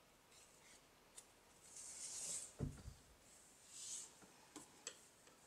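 Near silence with faint handling of yarn and crochet hook: two soft swishes of yarn drawn through, a soft low bump between them, and a few tiny ticks.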